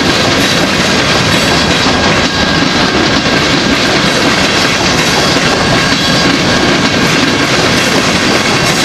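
Empty rock-train gondola cars rolling past, their steel wheels on the rails making a steady, loud clickety-clack, with a faint steady high ring over the rumble.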